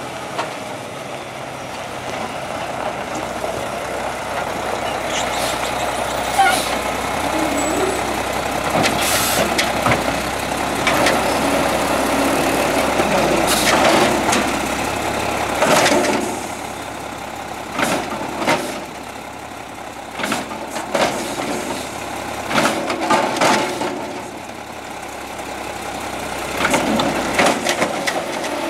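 Automated side-loader garbage truck's diesel engine running while its hydraulic arm grabs a wheeled trash cart, lifts and shakes it empty into the hopper, and sets it back down. Repeated clanks and bangs of the plastic cart and the steel arm sound over the engine.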